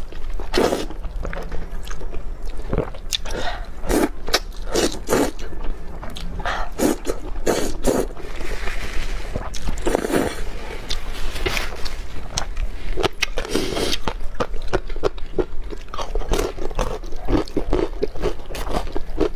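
Close-miked slurping and chewing of rice noodles in spicy broth: a run of short, wet slurps and mouth noises, with a longer slurp about nine seconds in.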